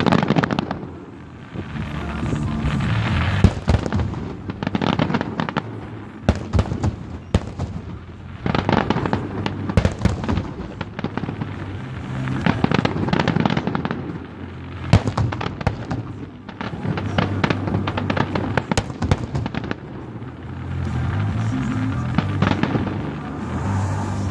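Aerial fireworks going off: waves of rapid crackling with sharp bangs, a new wave every few seconds.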